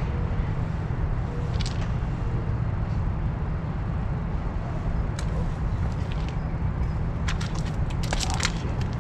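Steady low outdoor rumble, with a few faint short clicks and rustles, most of them bunched together in the last two seconds.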